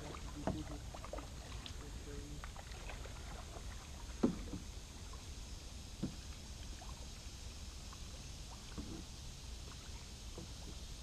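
Kayak paddling on calm water: the paddle dipping and dripping, with a few sharp knocks, the loudest about four seconds in, over a steady low rumble.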